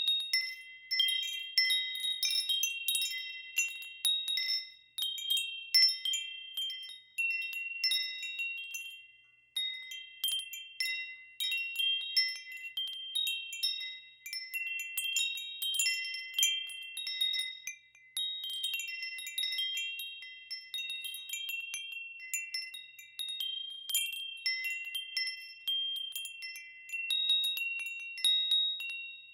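Wind chimes ringing on and off, a handful of high notes struck at random and overlapping as each one rings on and fades.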